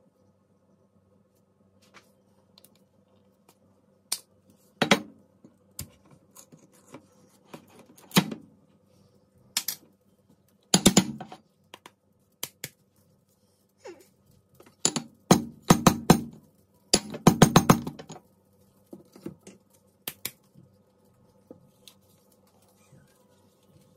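An opened metal tin of Spam being knocked and tapped against a ceramic plate and the worktop to shake the meat out: a string of sharp knocks and clinks, thickest about two thirds of the way through.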